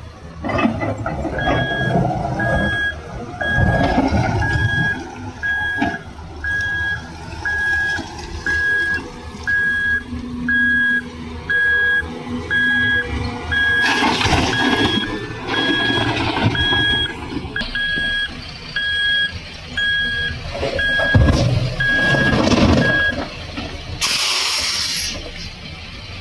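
Reversing alarm of heavy coal-mine machinery beeping at a steady even pace over the rumble of a diesel engine. The engine surges louder a couple of times, and the beeping stops a few seconds before the end, followed by a short hiss.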